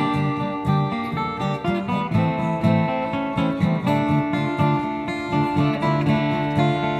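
A band playing an instrumental guitar passage: plucked and strummed guitars in a steady rhythm, without vocals.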